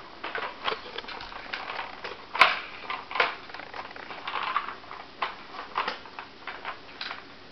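Irregular plastic clicks and knocks from a Nina Ottosson Dog Tornado puzzle feeder as a greyhound noses its rotating layers round to get at the kibble, with a sharper knock about two and a half seconds in.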